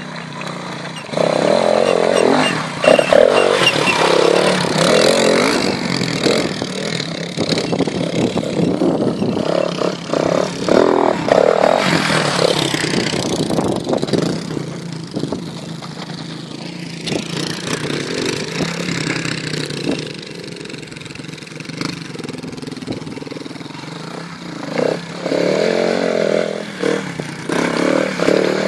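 AJP PR4 enduro motorcycle's single-cylinder four-stroke engine revving in bursts as it is ridden up a rocky trail. It fades as the bike gets farther off in the middle, then comes back close and loud near the end.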